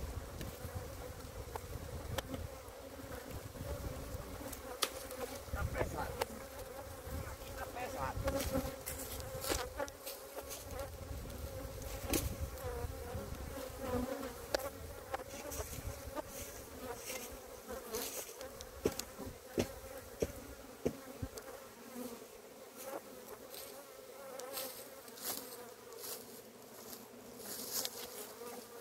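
A large mass of Italian honeybees buzzing steadily around an open hive, a continuous hum, with scattered clicks and knocks throughout.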